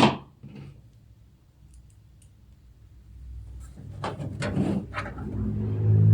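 Light clicks and knocks of screws and computer-case parts being handled, mostly in a cluster about four seconds in, with a low steady hum coming up near the end.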